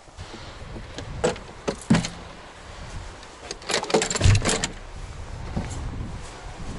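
A few sharp clicks and knocks, then a burst of metallic clatter with a dull thump about four seconds in, from gear being handled in the open side storage compartment of an all-terrain vehicle.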